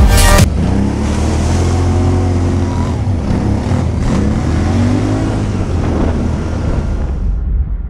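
ATV (quad) engine revving up and down several times, its pitch rising and falling, then fading out near the end.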